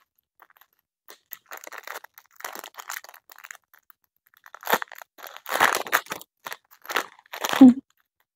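Plastic packaging bag crinkling and crackling in the hands as it is handled and opened, in irregular rustles that grow denser and louder in the second half.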